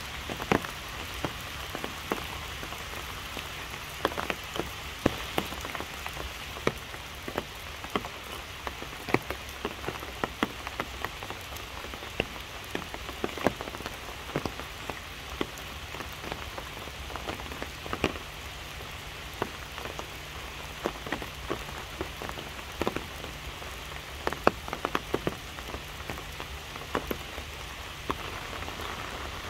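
Steady rain falling on the tree canopy: a constant hiss with many close, irregular drops ticking loudly.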